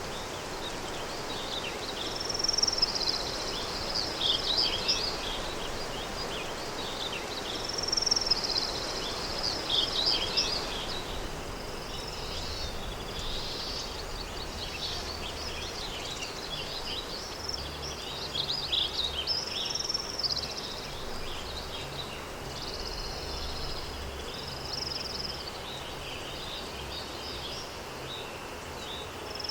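Countryside daytime ambience: songbirds chirping in short repeated phrases every few seconds over a steady rustle of wind.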